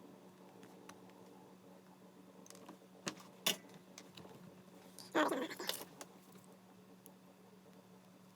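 Small metal parts and tools handled on a workbench: a few sharp clicks, then a short metallic jangling rattle about five seconds in, over a steady low hum.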